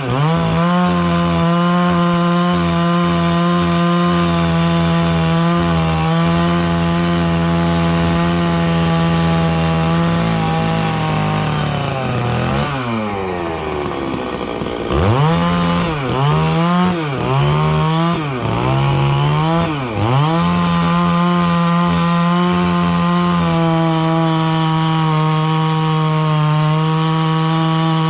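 Stihl 660 two-stroke chainsaw with a 36-inch bar, ripping lengthwise through a dry larch log. The engine holds steady at high revs under load for about ten seconds, then the revs fall away. It is blipped up and down several times before settling back to steady high revs.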